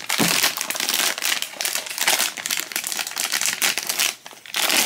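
Foil blind-box bag crinkling and crackling as hands tear it open, with a brief pause about four seconds in.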